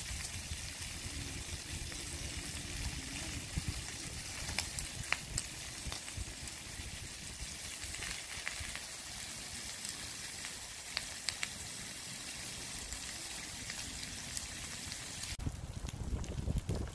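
Grilled octopus and vegetables sizzling on a hot barbecue hotplate: a steady high hiss with scattered sharp pops and crackles. The sizzle cuts off suddenly near the end, leaving a low rumble.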